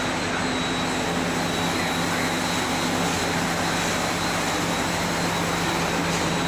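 Double-head aluminium cutting saw running, its motors and blades spinning at a steady speed with a constant hum and a thin high whine.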